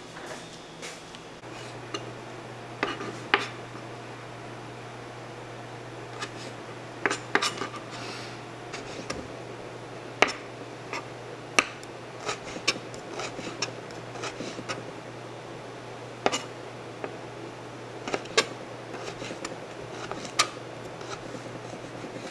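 Dishes, pots and metal utensils clinking and knocking now and then as kitchen work goes on, with a steady low hum underneath that comes in about a second and a half in.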